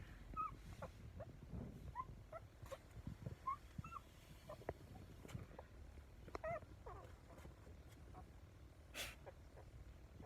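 A puppy whimpering in short, high squeaks, scattered every second or so, with a few faint clicks between them.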